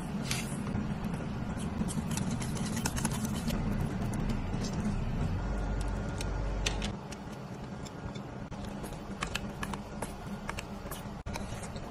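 Metal spoon and fork clinking and scraping against a stainless steel mixing bowl while ingredients are stirred in, as a scatter of short sharp clicks over a steady low hum.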